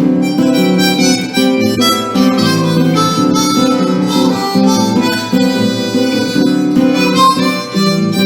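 Instrumental break of a Brazilian gospel song: a harmonica playing a melody over acoustic guitar accompaniment.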